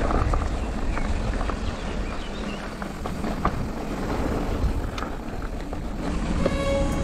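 Wind buffeting the camera microphone and mountain-bike tyres rumbling over a dirt trail on a descent, with scattered knocks and rattles from the bike over rough ground. Music fades in near the end.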